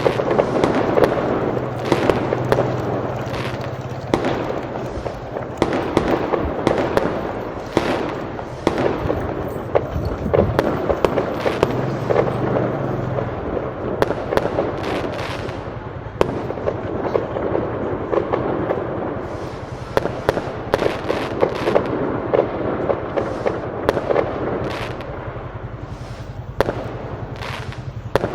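Fireworks going off in a dense barrage: continuous crackling with many sharp bangs, some coming in quick clusters.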